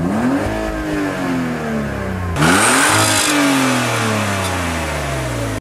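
Car engine being revved in Park, twice: a first rev at the start and a sharper second one about two and a half seconds in, with the revs sinking back after each.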